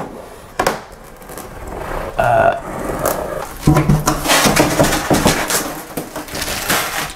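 Packaging on a new glass door being torn and pulled open by hand: irregular tearing, crinkling and scraping with scattered knocks.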